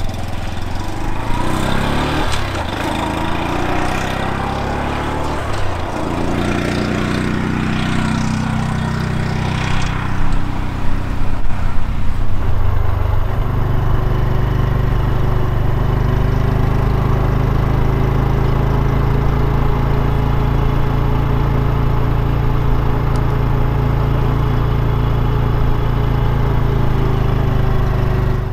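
Honda Super Cub 125's single-cylinder four-stroke engine heard while riding, its pitch rising and falling several times. About halfway through it settles into a steady note at constant speed.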